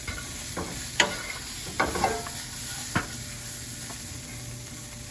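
Wooden spoon stirring shaved Brussels sprouts in a sizzling skillet, with several sharp knocks and scrapes of the spoon against the pan.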